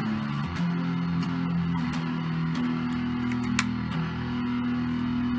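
Electric guitar played slowly, with sustained low notes that change pitch every second or two and light string and pick clicks.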